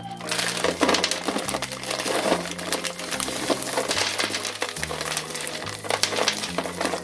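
Background music with a bass line stepping between held notes, over frequent small clicks and crinkles of things being handled.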